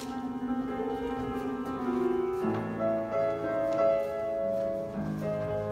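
Piano playing slow, held chords, with a deeper chord coming in about halfway through.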